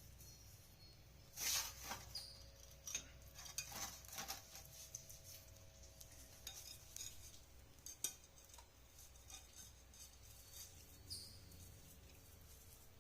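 Scattered light metallic clinks and knocks from fitting work on a steel kitchen sink, loudest and busiest in the first few seconds, with a sharp single knock near the middle.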